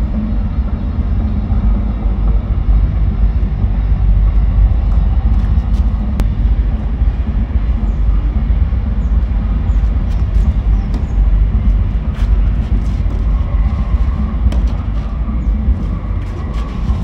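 Steady loud low rumbling noise, with a few sharp racket-on-ball strikes of a tennis rally in the second half.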